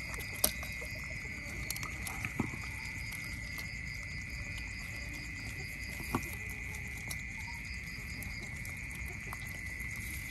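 Otters eating fish, with a few sharp crunching clicks as they bite, over a steady high-pitched drone with a faint rapid pulsing above it.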